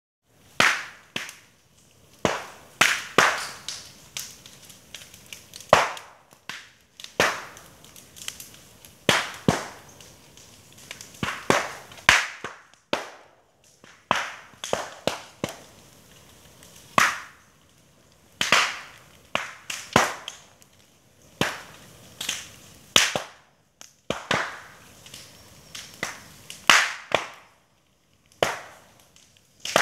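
Burning bamboo culms bursting with loud, sharp pops at irregular intervals, roughly one a second, each dying away quickly. The pops come from heated air and steam trapped in the bamboo's sealed internodes bursting the stems.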